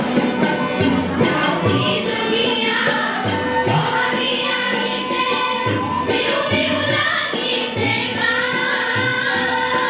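A women's choir singing an Assamese song together, accompanied by a steady hand-drum rhythm on tabla and held notes from a harmonium.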